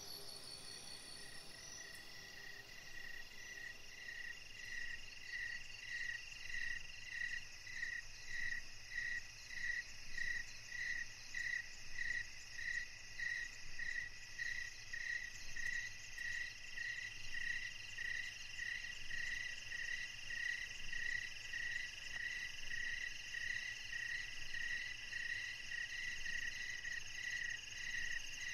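Night chorus: a frog's short, high piping note repeated evenly about one and a half times a second, over a steady high trill of crickets, starting about two seconds in.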